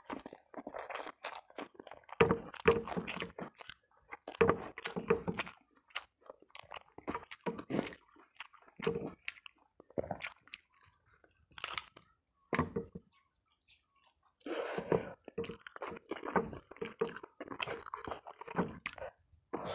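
Close-miked chewing and crunching of a meal of fried chicken, rice and boiled cassava leaves, in repeated bursts of bites and chews with a brief pause about two-thirds of the way through.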